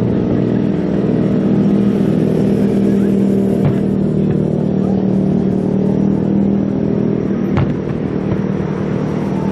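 Steady engine drone at a constant pitch, with two sharp firework bangs about four seconds apart.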